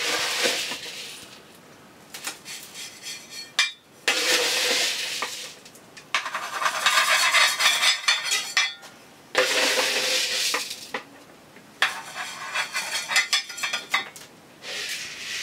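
Metal soil scoop scraping into a plastic bowl of granular akadama and kiryu bonsai soil and pouring it out, the gritty grains rattling and clinking in about five or six separate scoopfuls.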